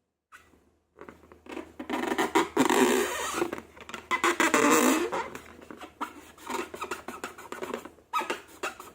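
Slime being squished and stretched by hand, a dense run of small sticky clicks and squelches, starting about half a second in and swelling in two loud surges.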